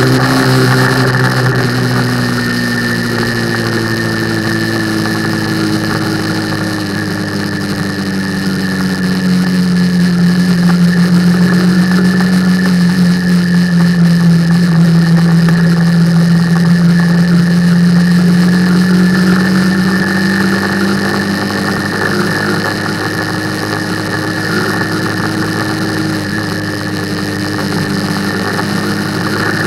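Motorcycle engine running under way, its note sliding down over the first several seconds, loudest through the middle, and climbing again in the last third as the throttle changes, with a steady rush of wind and road noise.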